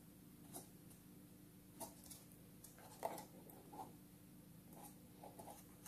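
Near silence with faint, scattered taps and rustles of a cardboard toy box with a plastic window being handled and turned over on a table.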